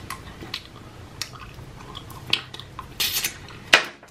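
Close-miked chewing of a soft gummy Swedish Fish candy cane: scattered wet clicks and smacks, the loudest about three seconds in.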